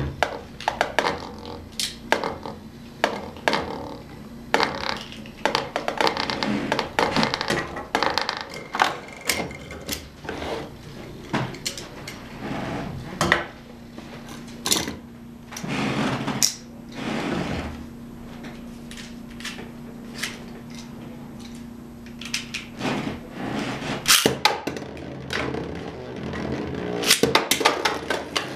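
Spinning battle tops clattering in a plastic stadium bowl, with many sharp clicks and knocks as they strike the walls and each other. A steady hum runs for several seconds past the middle.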